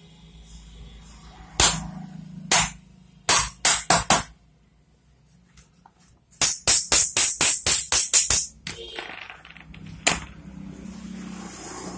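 Sharp metallic clinks and rattling as a motorcycle camshaft with its ball bearings is worked out of an aluminium cylinder head and handled. There are a few separate clinks and a quick run of four in the first half, then a fast jingling rattle of about ten strokes with a faint high ring, and one last clink near the end.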